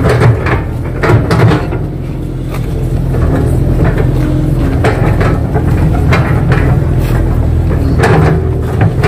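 Kato HD 512E excavator's diesel engine running steadily under load, heard from inside the operator's cab. Several clanks and knocks come from the boom and bucket in the first two seconds and again near the end as the bucket pushes and smooths wet mud.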